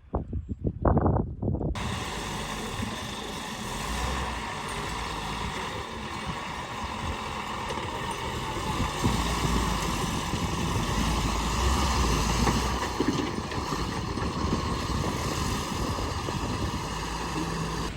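Tata 10-wheeler truck's diesel engine running steadily as the truck drives over rough ground, with wind noise on the microphone. The sound sets in abruptly about two seconds in, after a few low thumps.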